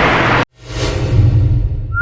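A loud, steady noise cuts off abruptly about half a second in. It gives way to an edited outro sound effect: a whoosh sweeping in over a deep bass rumble, music-like and slowly fading.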